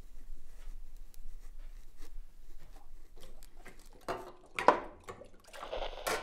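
A pen scratching faintly on paper, then water splashing and dishes knocking in a soapy kitchen sink as dishes are washed by hand, louder from about four seconds in.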